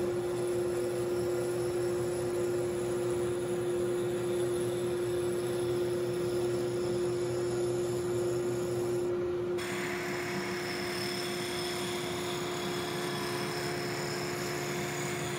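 Wood lathe and dust collector running with a steady hum while a turning tool cuts a spinning wooden dowel. About ten seconds in, the sound turns suddenly brighter and hissier.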